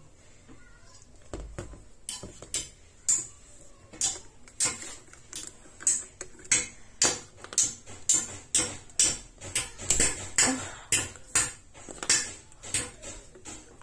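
Hard plastic clicking and knocking from a rinse aid bottle and its screw-on nozzle cap being handled and opened, about two sharp clicks a second starting about two seconds in.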